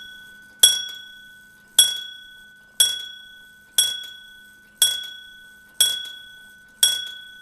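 1860s Morbier Comtoise clock's hammer striking its bell for ten o'clock. The strikes come about one a second, seven in a row, each ringing at one clear pitch and fading before the next.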